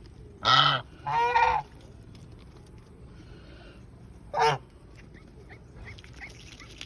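Domestic geese honking: three loud calls, the second one longer and harsher, followed by a few faint short chirps near the end.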